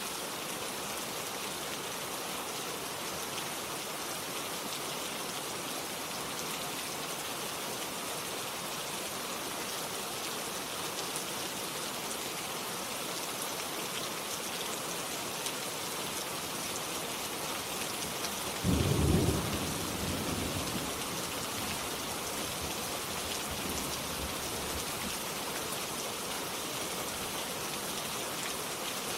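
Steady rain falling, with one sudden low clap of thunder about two-thirds of the way through that rumbles for a second or two and fades away.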